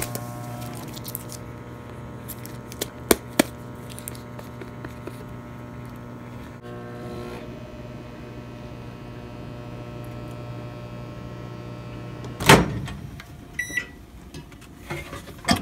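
Emerson microwave oven running with a steady hum. Near the end the door is popped open with a loud clunk, the hum stops, and a short beep follows.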